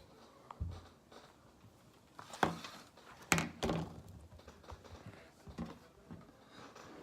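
A few scattered soft knocks and taps from objects being handled, the loudest about two and a half and three and a half seconds in.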